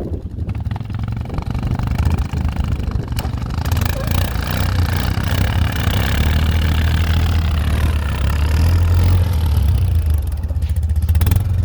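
Suzuki ATV engine running steadily under load, getting louder about four seconds in and holding there until near the end.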